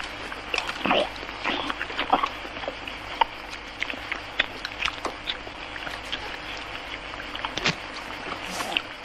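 Greedy, noisy chewing of roast chicken torn off the bone: irregular wet smacks and clicks of lips and teeth.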